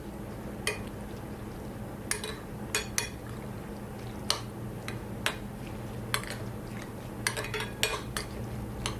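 A spoon clinking and scraping against a bowl while chopped prawns, herbs and salt are stirred together, in irregular clinks about one or two a second. A faint low hum runs underneath.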